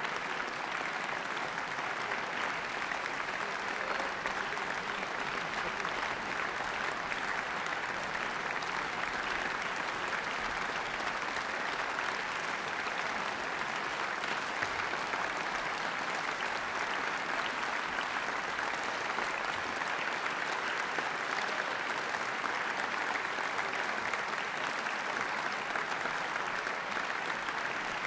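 Audience applauding, a dense, even clapping that holds a steady level.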